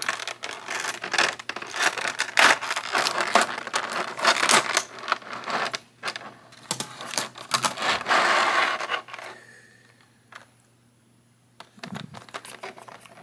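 Clear plastic blister tray crinkling, clicking and scraping as an action figure is worked free of it. The dense handling stops about nine seconds in, leaving a near-quiet pause with a single click, and a few light clicks follow near the end.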